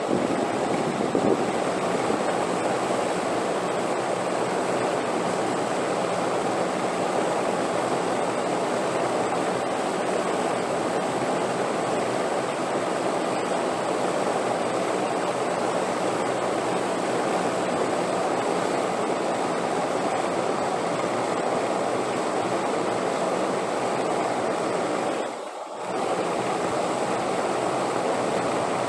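Steady wind, a continuous even rushing, with a brief drop in level about 25 seconds in.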